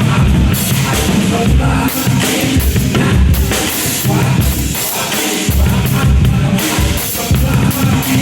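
Rock music with vocals and a drum kit playing a steady beat, the kick drum strong in the low end.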